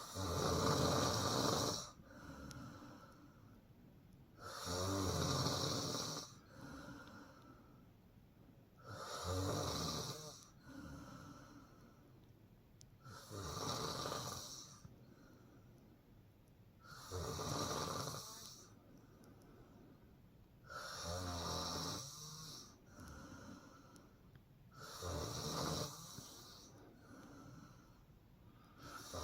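A woman snoring in her sleep: seven loud, rasping snores about four seconds apart, with a softer breath sound between each.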